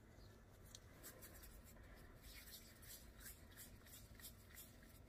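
Faint soft rubbing of hands rolling flour-tortilla dough into balls on a wooden cutting board, about three light strokes a second.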